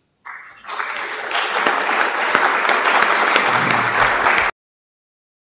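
Audience applauding in a lecture hall, swelling quickly to a steady clapping that stops suddenly near the end.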